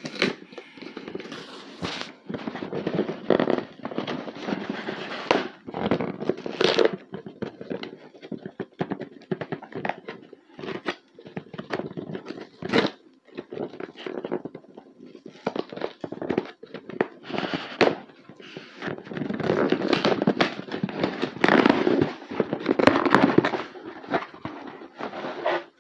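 Cardboard shipping box being torn open by hand: irregular ripping, crackling and knocks from packing tape and cardboard, with busier stretches a couple of seconds in and again near the end.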